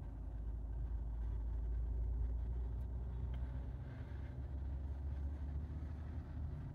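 Low steady rumble heard inside a parked car's cabin, swelling slightly and easing off again.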